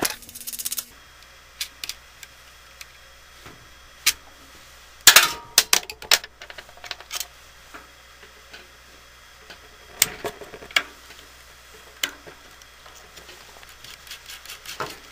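Scattered small metallic clicks and clinks of a nut driver and loose nuts on a fan motor's through-bolts as the nuts are taken off. There is a quick cluster of clinks about five seconds in, and a few more near the end.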